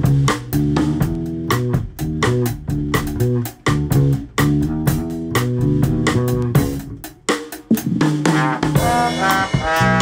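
Small band playing a jazz tune: an electric bass walks a line under steady drums, and a trombone comes in with held notes near the end.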